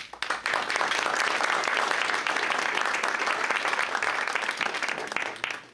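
Audience applauding, a burst of clapping that starts right away and falls off fairly quickly near the end.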